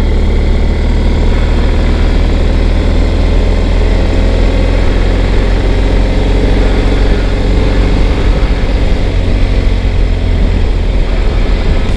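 Motorcycle cruising at around 60 km/h, its engine and rush of wind heard as a loud, steady low rumble through a handlebar-mounted action camera's microphone.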